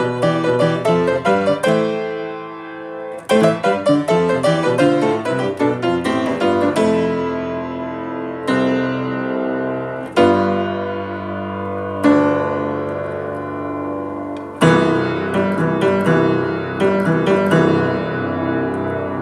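Piano playing. Quick runs of struck notes give way to a chord left ringing and fading, then more quick notes, then slower chords struck about every two seconds and left to sustain, with busier playing again near the end.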